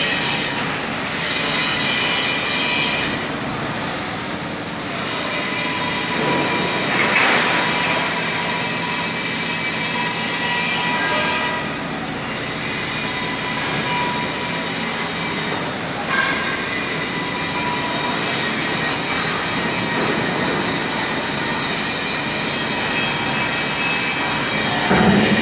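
JCB Loadall telehandler running as it holds and positions its raised telescopic boom: a steady mechanical noise with faint, thin high whines. There is a brief louder swell near the end.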